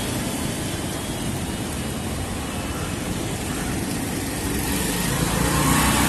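Street traffic: a steady rumble of passing cars and motor vehicles, a little louder near the end as an engine passes close.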